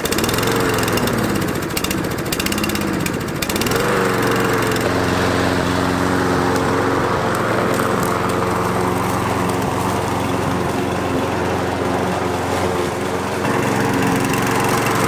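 Walk-behind lawn mower engine catching on a pull start. Its speed rises and falls for the first few seconds, then it settles into a steady run while being pushed across the grass. The carburetor has just been cleaned without a rebuild and still needs adjusting.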